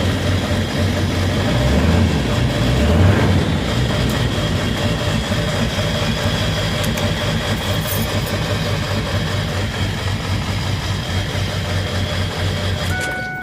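Ford 7.3 Powerstroke V8 turbo-diesel idling, with an uneven, louder surge about two seconds in, then running steadily until it shuts off near the end. The intermittent rough idle is what the owner takes for one injector not firing all the time.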